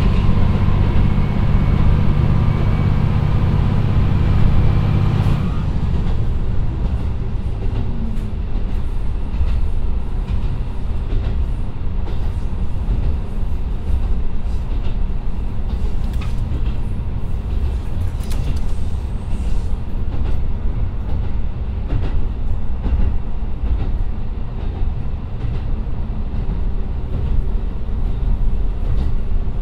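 The KiHa 125 railcar's turbocharged Niigata DMF13HZ diesel engine pulls with a steady drone and a high whine, then drops away abruptly about five seconds in as power is shut off. After that the car coasts, with the wheels rumbling steadily on the rails and a few clicks.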